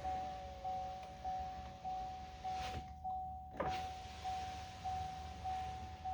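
Power window motor in a GM pickup's door running the glass with a faint whine that falls slightly, stopping with a knock a little under three seconds in, followed by a click about a second later. Over it the truck's warning chime dings steadily, about one and a half times a second.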